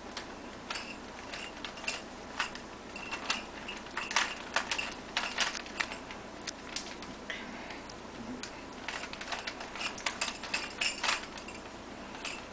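Plastic Rubik's Cube being twisted by hand: irregular clicking as its layers snap round, in quick runs broken by short pauses.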